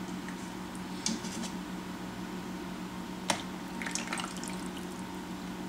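Vegetable oil being poured, with a few light clinks and one sharp click about halfway through, over a steady low hum.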